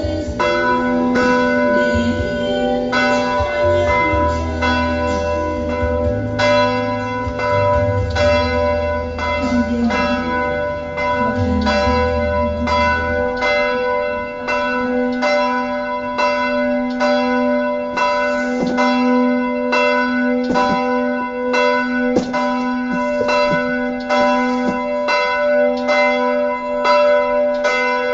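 Church bells pealing: a steady run of strikes, about two a second, with the bells' tones ringing on between them.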